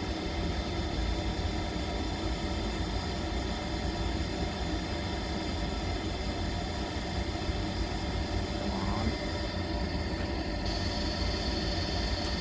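Lennox rooftop gas heating unit's draft inducer motor running steadily during the pre-purge while the furnace waits for ignition, a continuous low hum with hiss. The hiss shifts in tone near the end.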